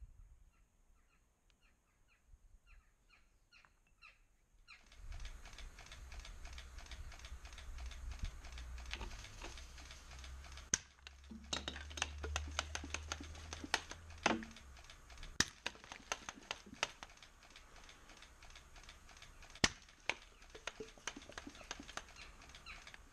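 A few faint bird chirps, then about five seconds in a small red smoke pellet starts burning with a steady hiss and irregular sharp crackles and pops.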